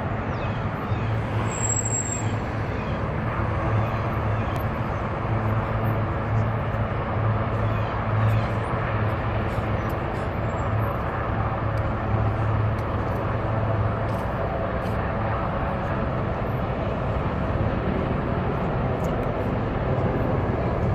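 Steady low drone of helicopters, the Marine One flight and its escorts, with a constant hum under an even rushing noise.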